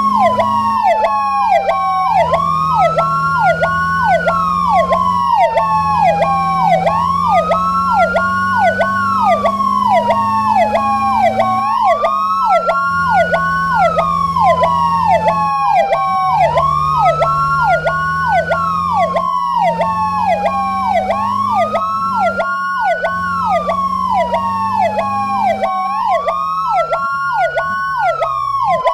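Two fire engine sirens sounding together: one wails, rising quickly and falling slowly about every five seconds, while the other pulses in a fast yelp a few times a second, over a low hum.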